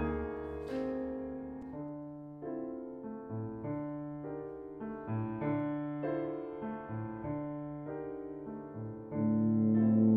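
Piano accompaniment playing alone, chords and notes struck one after another and each fading away. About nine seconds in, a louder sustained low note comes in on top, the tuba re-entering.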